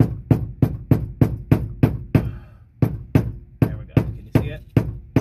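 Rubber mallet striking a screwdriver braced against the ridge of a fuel pump lock ring, about three knocks a second, with a short pause about two seconds in. The ring is being driven round to loosen it.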